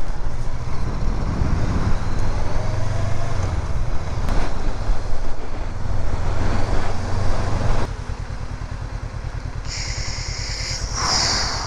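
Honda CB500X motorcycle's parallel-twin engine running on the road for about eight seconds, then the sound cuts abruptly to a quieter steady background.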